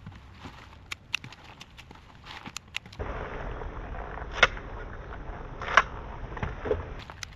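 Hand shears snipping the tops and roots off freshly pulled onions: a run of sharp clicks, with two louder snips a little over a second apart in the middle.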